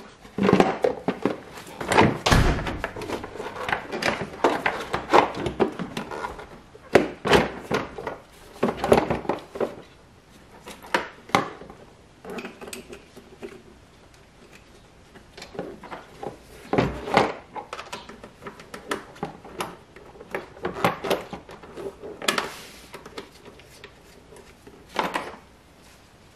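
Hard plastic air intake duct and air cleaner housing parts knocking and clunking as they are handled and fitted back into place under the hood, in irregular thumps and clatters with a few louder knocks.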